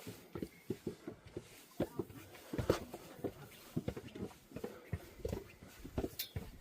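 Footsteps climbing a stone stairway trail, an uneven run of scuffs and knocks about two or three a second.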